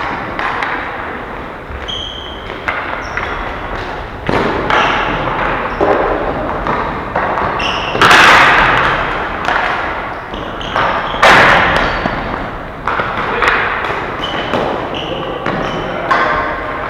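Ball hockey game play echoing in a large hall: repeated knocks of sticks and ball, with heavy thuds against the rink boards, the loudest two about 8 and 11 seconds in. Short high squeaks come between the hits.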